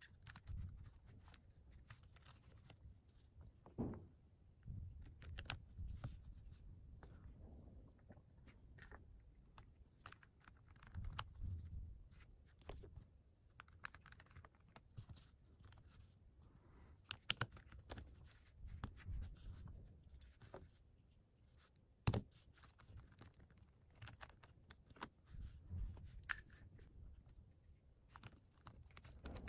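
Plastic pieces of a GAN 356 XS magnetic speedcube being fitted together by hand: irregular light clicks and taps as edges and corners snap into place, with soft handling rubs and a few sharper clicks.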